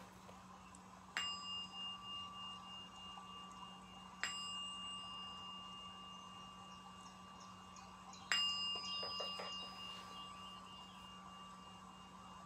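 Three single strikes on a chime, about three and four seconds apart, each ringing on and fading slowly; the three tones mark the start of a time of silent prayer.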